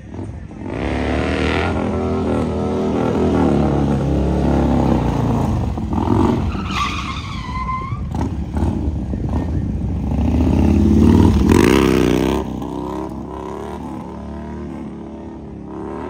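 Harley-Davidson V-twin motorcycle engine revving hard during stunt riding, the rear tyre squealing on the asphalt about six to eight seconds in. The revs climb to their loudest near twelve seconds in, then drop back.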